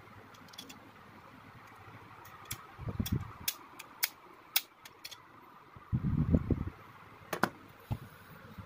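Small sharp plastic clicks and taps as a toy scale-model car's plastic body shell and chassis parts are handled, with dull knocks and rubbing about 6 seconds in as the body is set down, over a steady background hiss.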